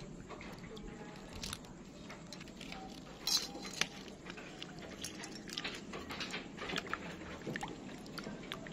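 Water sloshing and splashing in a stainless-steel bowl as a hand stirs cut ash gourd pieces soaking in slaked-lime water. The gourd pieces give irregular soft knocks and patters, with a couple of sharper ones about three and a half seconds in.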